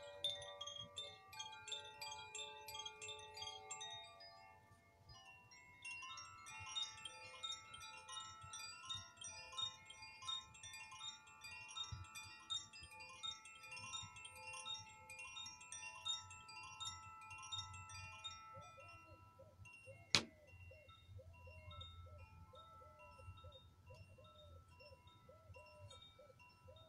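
Chimes ringing in a sound-healing session: many bright, overlapping tinkling notes struck in quick succession. From about two-thirds of the way through, a lower tone joins and wavers about twice a second, and there is one sharp knock a little after that.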